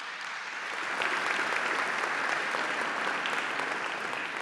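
Audience applauding, a dense crackle of many hands clapping that swells about a second in and slowly dies away near the end.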